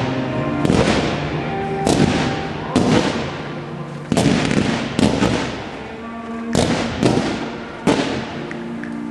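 Fireworks display: aerial shells bursting in a rapid series, about one sharp bang a second, each trailing off before the next. Music plays underneath.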